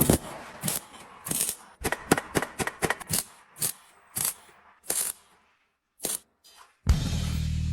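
A rapid, irregular series of sharp clicks and knocks, with a short silence about five and a half seconds in. Near the end a steady low hum starts.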